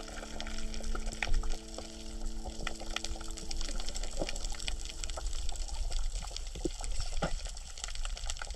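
Underwater coral-reef crackle: a dense scatter of fine clicks and pops over a low watery rumble, which the uploader takes for coral breathing. Held background-music notes fade out about six seconds in.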